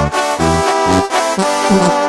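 Banda brass band playing an instrumental passage with no singing: brass horns carry held chords and a melody over a bass line that sounds a low note about twice a second.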